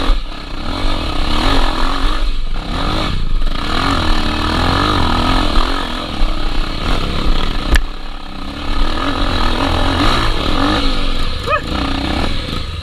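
Honda XR 250 Tornado dirt bike's single-cylinder four-stroke engine running on a trail ride, its revs rising and falling continually as the throttle is worked. A single sharp click sounds about eight seconds in.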